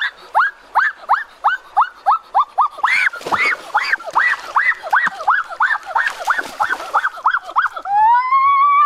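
A bird squawking loudly: a quickening run of short calls that rise and fall in pitch, about three a second, then one long drawn-out call near the end.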